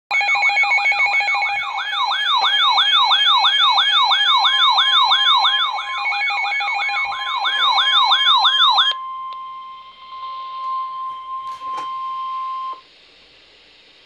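Several weather alert radios sounding their alarms at once for a severe thunderstorm warning. For about the first nine seconds a siren-like tone sweeps up and down about three times a second, with steady beeping tones on top. Then only one steady alert tone remains, and it cuts off a little before the end.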